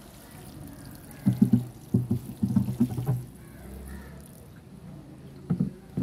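Water sprinkling from a plastic watering can's rose onto loose soil, a soft hiss that stops about four and a half seconds in. A cluster of loud, low knocks and rumbles comes from about one to three seconds in, and two more come near the end.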